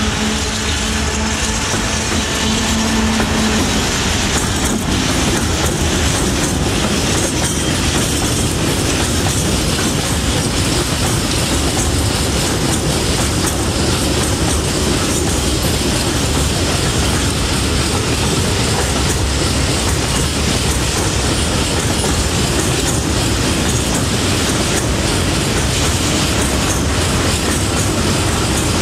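Fret SNCF BB 27000 electric locomotive passing, with a steady hum for the first few seconds, followed by a long freight train of covered coil wagons and tank wagons rolling by. The wagon wheels clack over the rail joints.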